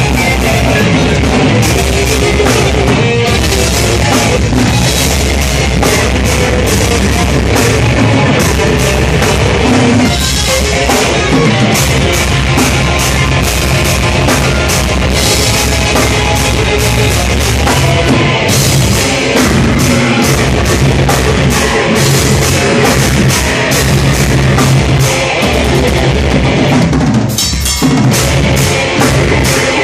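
Deathcore band playing live: a drum kit with bass drum and cymbals under heavy electric guitar and bass, loud throughout, with a short break near the end.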